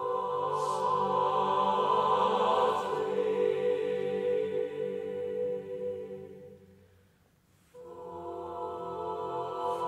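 Choir singing unaccompanied in four parts, holding long swelling chords. The phrase dies away about seven seconds in, and the choir comes back in with a new phrase nearly a second later.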